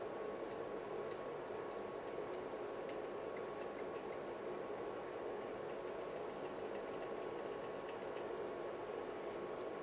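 Light, scattered ticks of a metal test-probe tip tapping against resistor leads on a breadboard, coming thickest past the middle, over a steady hiss with a faint high hum.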